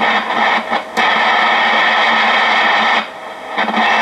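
Sony TR-6080 transistor AM radio's speaker playing a station with music under heavy static hiss. The sound dips out briefly just before a second in, and again for about half a second around three seconds in.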